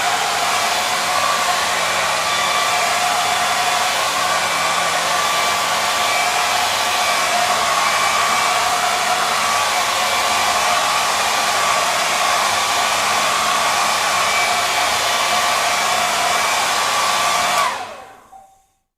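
Hair dryer running steadily: a loud rush of blown air with a motor whine over it. Near the end it is switched off and the whine falls away as the motor spins down to silence.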